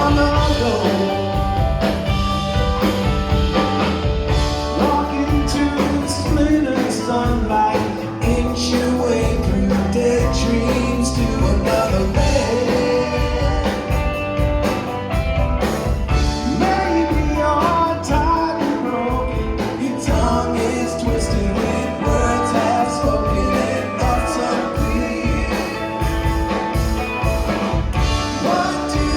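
Live rock band playing a song with singing.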